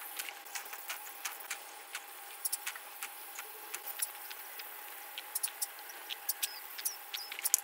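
Ultrasonic dental scaler running with a steady high hiss and a faint steady tone, while metal tips click irregularly against a small dog's teeth, scaling off tartar.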